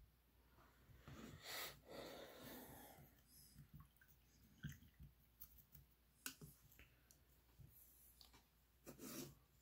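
Near silence with faint scattered clicks and soft rustles of small handling on a desk, as a painted miniature is turned in the hand and stood on a cutting mat.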